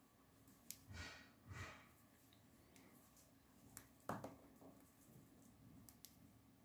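Near-silent room with faint handling sounds from fingers working small plant sprigs: two soft rustles about a second in and a sharp click around four seconds in, with a few fainter ticks.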